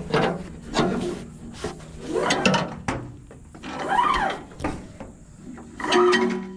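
Rubber hydraulic hose being pulled hand over hand through a bucket truck boom, squeaking and rubbing against the boom with each pull, about every second or two.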